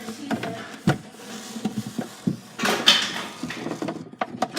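Scattered knocks and clatter of hard objects being handled and bumped, with a short scraping rustle a little past the middle.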